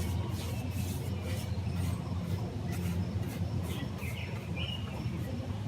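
Steady low outdoor background hum with faint scratchy strokes, and a bird chirping twice about four seconds in.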